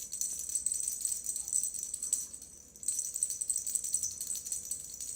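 A continuous, fast, high-pitched rattling, like something being shaken, that briefly drops away about two and a half seconds in and then starts again.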